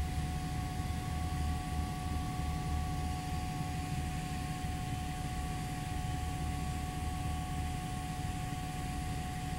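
Cabin drone of a Piper Twin Comanche's two piston engines and propellers on final approach: a steady low throb with two constant high tones over it.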